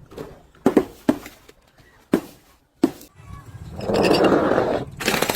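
Objects being crushed: a handful of sharp cracks in the first three seconds, then a longer rushing, crunching noise that ends in a sharper burst.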